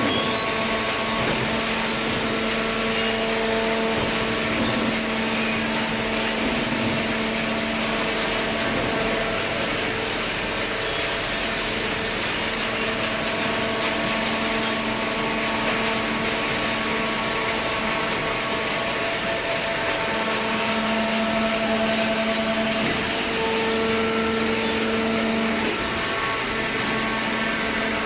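Horizontal hydraulic paper baler and its plant running: a steady mechanical hum with several held tones over a noisy rush.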